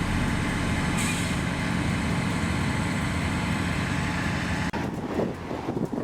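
Loud, steady vehicle engine noise with a rushing sound that cuts off suddenly about four and a half seconds in, followed by quieter, uneven vehicle noise.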